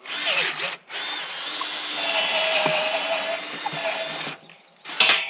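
Cordless drill boring a hole into a wooden gate post: a short burst, then a steady run of about three seconds, and another brief burst near the end.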